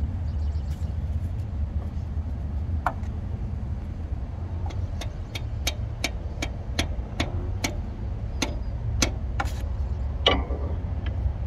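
Light hammer taps on a diesel fuel injector, about three a second for several seconds, as it is driven down into its bore to seat it. A steady low rumble runs underneath.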